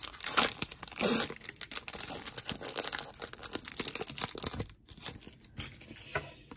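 Foil wrapper of an Upper Deck Marvel Annual trading card pack being torn open and crinkled: dense crackling for about four and a half seconds, then trailing off to a few light clicks.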